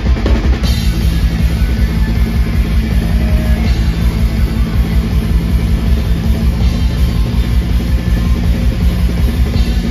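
Atmospheric black metal band playing live and loud: distorted electric guitars over constant, dense drumming, with a held guitar chord setting in about half a second in.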